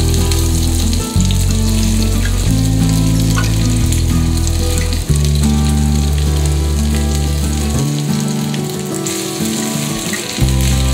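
Diced potatoes and onions sizzling steadily in hot oil in a cast-iron skillet, under background music with held low notes that change every second or two.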